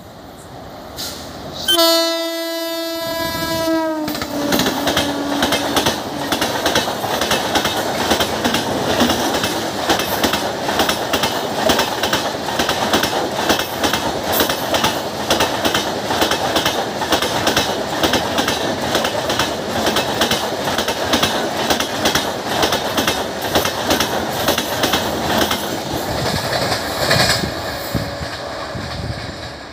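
Indian Railways WAP-7 electric locomotive blowing its horn, one long blast about two seconds in whose pitch drops as the engine passes. Then the express's passenger coaches rush by at about 100 km/h with steady, rapid clickety-clack of wheels over rail joints, fading away near the end.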